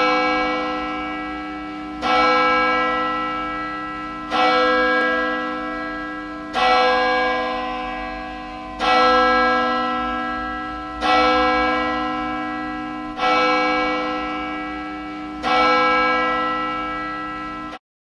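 A bell tolling slowly, eight strikes about two seconds apart, each ringing out and fading before the next. It cuts off abruptly near the end.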